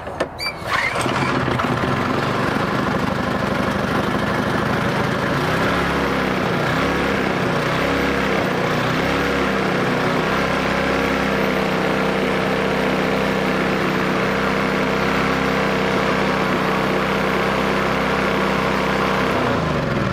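Black Max pressure washer's small gas engine starting on choke, catching within about a second, then running with its speed wavering for a few seconds before it settles to a steady run. It starts and runs well, and it winds down near the end.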